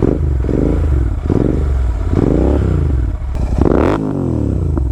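Royal Enfield Continental GT 650 parallel-twin engine with a Red Rooster performance exhaust, revved in a run of throttle blips while standing. Each blip rises and falls in pitch, and the highest comes about three and a half seconds in before it drops back.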